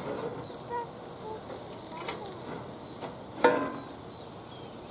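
Cast-iron cookware on a grill grate: faint light clicks over a steady low hiss, then one loud ringing metal clank about three and a half seconds in, as metal knocks against the cast iron.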